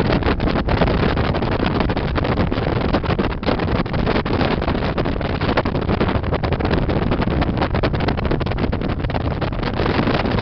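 Harley-Davidson V-twin motorcycle engine running steadily while riding along the road, with heavy wind buffeting on the microphone.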